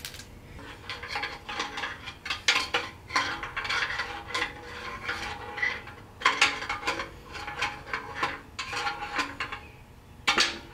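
Irregular metal clinking and clicking from hand work on a Ford 4000 tractor's rear end: the axle trumpet bolts being torqued and the differential ring gear turned by hand to check that it still spins freely. One sharper clink comes near the end.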